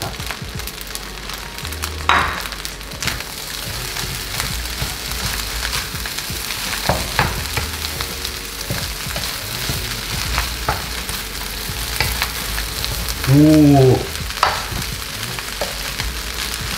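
Fried rice sizzling in a frying pan while a spatula stirs and turns it, with scattered clicks and scrapes of the spatula against the pan. A short burst of a man's voice sounds about thirteen seconds in.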